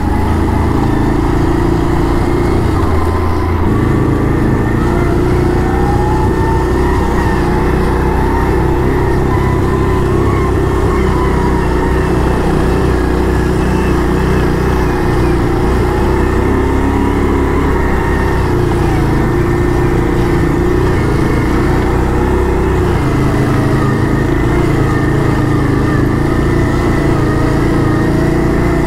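ATV engine running steadily while riding along a trail, its pitch rising and falling a little with the throttle.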